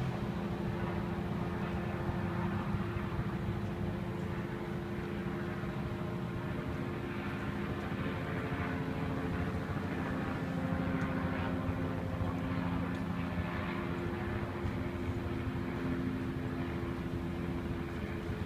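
Steady drone of engines running, with a couple of steady hums held over a noisy rumble.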